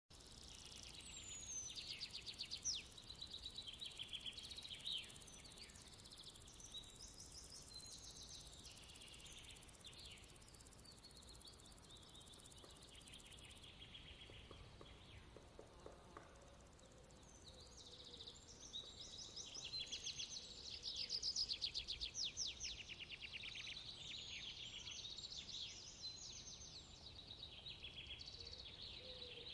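Birds chirping and calling, with many quick trills and a few sliding whistles, faint over a low steady hiss; the calls are busiest at the start and again through the second half.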